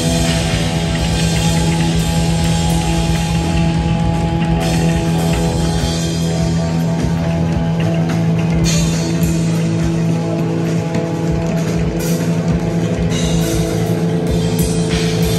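Metal band playing live and loud: electric guitar and bass holding steady droning notes under drums, with cymbal crashes coming and going.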